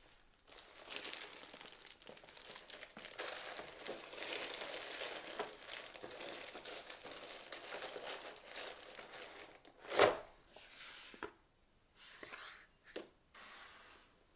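Packaging crinkling as it is handled, dense and crackly for about nine seconds, then a single sharp knock about ten seconds in, followed by a few short softer rustles.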